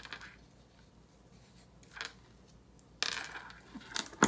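Light handling sounds of flower arranging: cut flower stems and foliage rustling and small clicks as stems are worked into a little ceramic teapot arrangement, with a short rustle about three seconds in and a sharp knock near the end.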